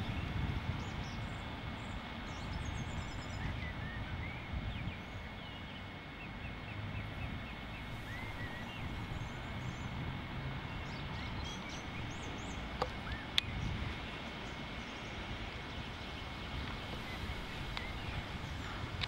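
Outdoor ambience: a steady low rumble with many short, scattered bird chirps. There are a couple of sharp clicks about two-thirds of the way through.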